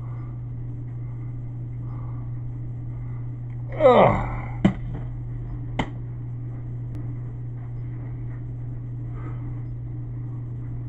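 Steady low electrical hum picked up by a cheap video camera, broken about four seconds in by handling noise: a short, loud sound falling steeply in pitch, then two sharp clicks about a second apart as the camera is moved.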